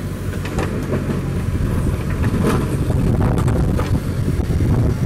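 Vehicle engine running steadily with a heavy low rumble, a few short knocks or clanks standing out over it.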